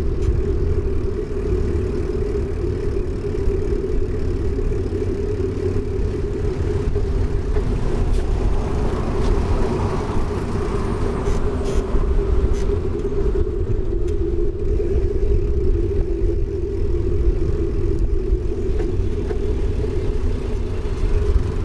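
Bicycle rolling along an asphalt cycle path: steady low rumble of wind on the microphone and tyre noise, with a constant hum.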